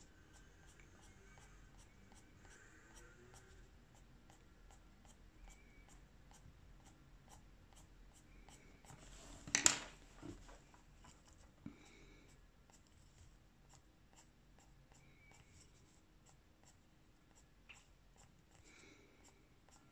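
Prismacolor Premier coloured pencils shading on paper: faint, quick scratchy strokes, repeating. One brief louder noise about halfway through.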